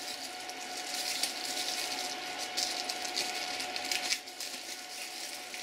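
Thin plastic bag crinkling and rustling as hands unwrap a multimeter from it. The crinkling stops about four seconds in, and there is one more short rustle near the end.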